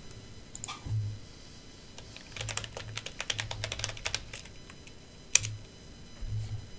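Typing on a computer keyboard: a quick run of keystrokes lasting a couple of seconds, typing a search into a web browser. It is followed by one sharper, louder click a little after the five-second mark.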